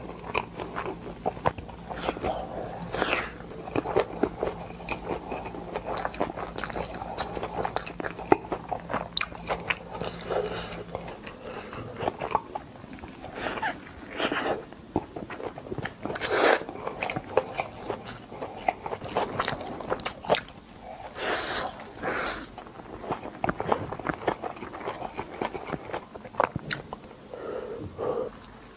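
Close-miked chewing and biting of dumplings: wet smacking and soft crunches, with a few louder bites scattered through.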